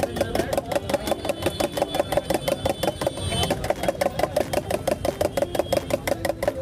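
Eggs being beaten with a metal spoon in a steel tumbler: the spoon clatters against the steel in a rapid, even rhythm with a ringing metallic tone.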